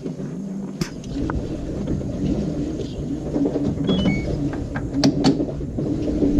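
LG 18 kg washing machine agitating an overloaded load on its cotton cycle: a low churning rumble of water and wet clothes, with a few sharp clicks or knocks.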